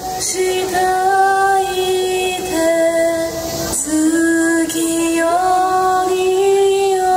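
Yosakoi dance music with a high singing voice holding long notes in a slow, stepwise melody, and a couple of sharp percussive hits, one near the start and one about halfway through.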